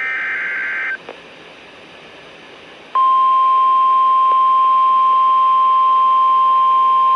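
NOAA Weather Radio alert. First comes the end of the SAME header: a short burst of digital data tones lasting about a second. After about two seconds' pause, the steady single-pitched warning alarm tone starts and holds. Together they signal a special marine warning about to be read.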